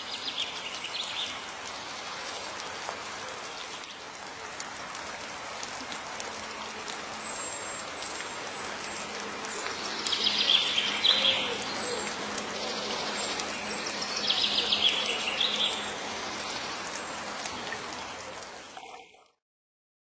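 Steady rain falling, with a bird giving quick runs of high chirps, most clearly about ten and fourteen seconds in. The sound fades out near the end.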